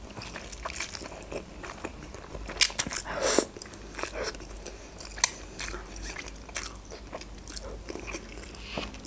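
Eating sounds: Big Bon instant noodles slurped up off a fork and chewed, with many small wet clicks and a louder slurp about three seconds in.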